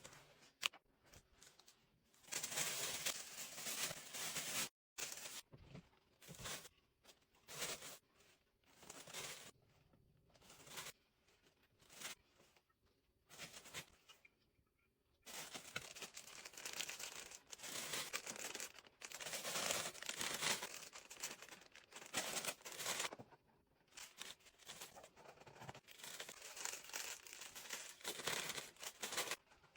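Tissue paper rustling and crinkling as it is handled, in bursts of a few seconds with short pauses between them.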